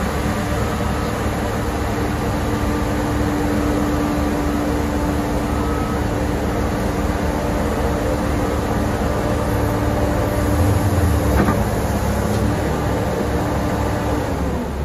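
Caterpillar 963C track loader's diesel engine running under load as its lift arms raise the bucket. A steady tone over the engine stops about eleven seconds in, just after a brief louder rumble.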